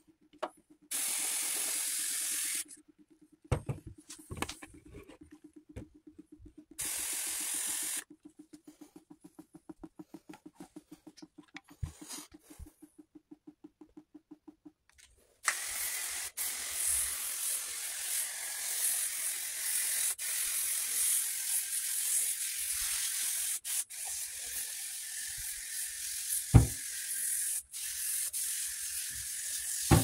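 Cleaning spray hissing in short bursts onto an air conditioner's evaporator coil, with a faint, fast, even ticking between bursts. From about halfway there is a long, steady spraying hiss with a few clicks as foaming cleaner is sprayed over the dust filters.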